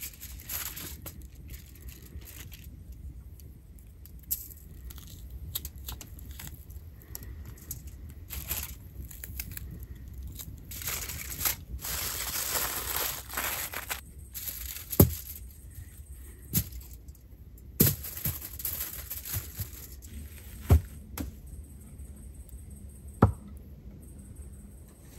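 Aluminium foil being torn and crinkled as it is wrapped around food, loudest in the middle. Several sharp knocks follow in the second half.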